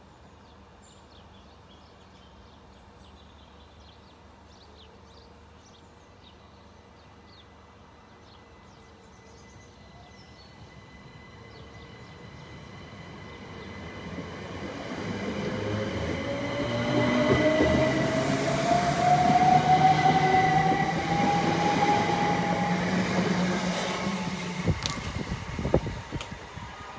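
Southern Class 377 Electrostar electric multiple unit pulling away from the platform. Quiet at first, it then builds up with a steadily rising traction-motor whine as it accelerates past, and falls away near the end.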